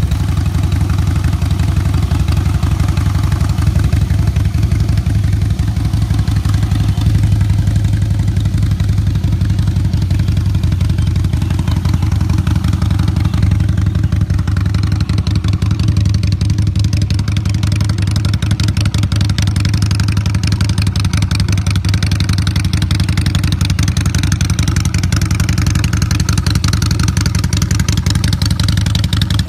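Harley-Davidson FXSB Breakout's Twin Cam 103 V-twin idling steadily through aftermarket dual exhaust pipes, with a loud, even low beat.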